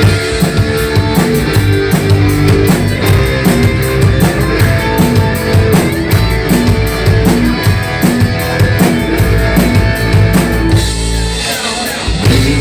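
Live rock band playing an instrumental intro on drum kit, electric guitars and bass, the full band coming in at once with a steady drum beat.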